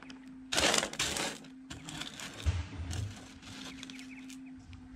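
Washed sapphire gravel being pushed and raked by hand across a metal sorting table: a loud rattling scrape of pebbles about half a second in, then lighter clicks and scrapes of stones. A faint steady hum runs underneath.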